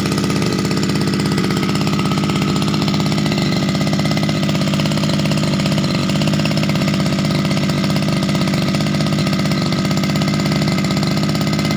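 Yamamaxpro two-stroke brush cutter engine running steadily at an even speed on a test run.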